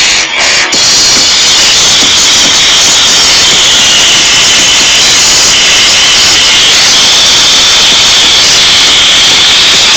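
Mini stereo system's speakers putting out a loud, steady hiss-like roar with no beat, taking over just under a second in as the pulsing music stops.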